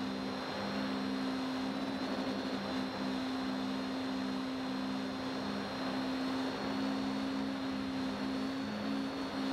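Quadcopter's electric motors and propellers heard from its onboard camera in flight: a steady buzzing hum on two pitches that swap back and forth as the motors change speed, a thin high whine above it, and a rush of air.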